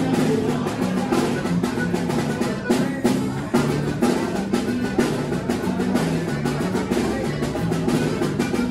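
Upbeat band music with drums and a bass line stepping from note to note.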